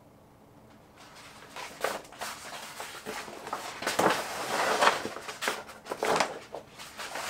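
A large sheet of wallpaper rustling and crackling as it is lifted, held up and pressed against the wall. The irregular rustles start about a second in and come more thickly and loudly through the rest of the stretch.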